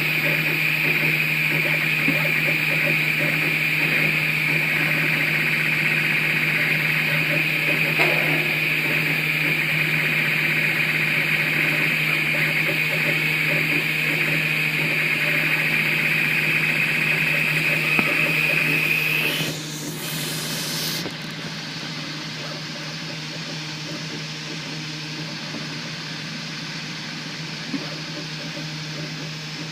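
3D printer running, with a steady high whine over a constant low hum. About two-thirds of the way through, the whine cuts out and the sound drops, leaving only the steady hum.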